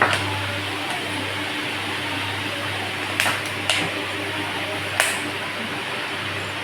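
A steady mechanical whir with a low hum, broken by a few sharp clicks, three of them in the second half.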